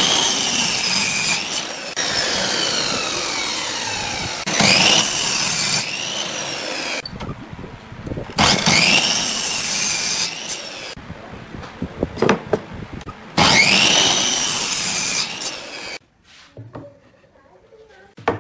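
Stanley mitre saw cutting through a pine board four times: each time the motor whines up to speed, cuts, and winds down, about four seconds apart. The saw stops about two seconds before the end, and a single wooden knock follows near the end.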